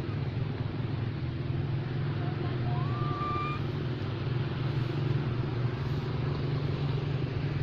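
A steady low rumble throughout, with one short, clear, whistle-like call about three seconds in that rises and then holds.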